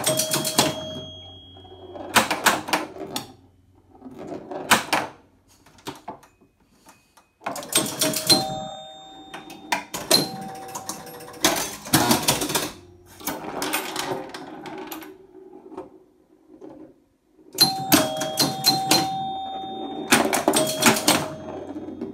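A 1978 Gottlieb Sinbad electromechanical pinball machine in play. Its scoring bells ring in quick runs among sharp mechanical clacks, in bursts broken by two brief lulls.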